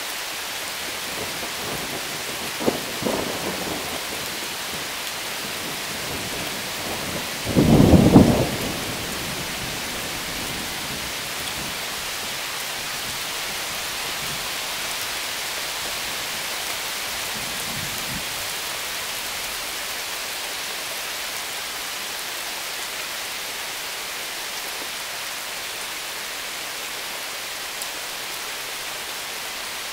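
Steady heavy rain hissing on lawns, pavement and the roof, with a short, loud rumble of thunder about eight seconds in and a fainter one a few seconds earlier.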